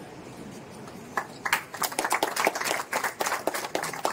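A small group of people clapping by hand, starting about a second in and going on as many quick, uneven claps; faint room murmur before it.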